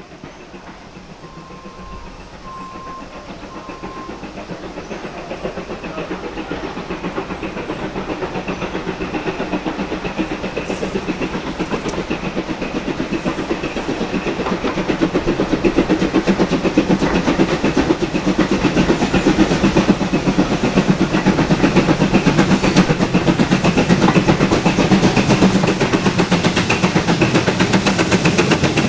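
Steam-hauled passenger train approaching and running past close by: a rapid rhythmic beat with clattering wheels on the rails, growing steadily louder as it nears.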